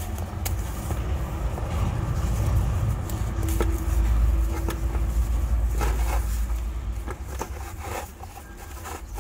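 A deep, low rumble swells to its loudest about four seconds in and fades after about eight seconds, with a few light clicks and rustles over it.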